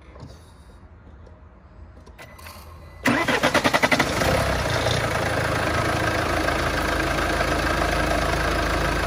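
Mercedes-Benz C250 CDI's 2.1-litre four-cylinder common-rail diesel started about three seconds in: a second of cranking, then it catches and settles into a steady idle. It is running for an injector return-flow test.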